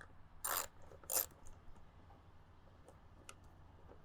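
Two short rasping scrapes about half a second apart, then a few faint clicks near the end: a small hand tool working the hose clamp ring on the intake tube of a Jeep Wrangler JL's air filter housing.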